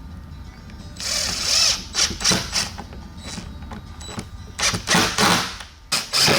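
A power tool running in three short bursts, starting about a second in.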